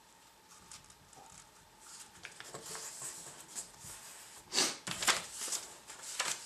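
A sheet of paper being folded and creased by hand on a wooden tabletop: soft rustling and sliding that builds from about two seconds in, with a few sharper crackles near the end.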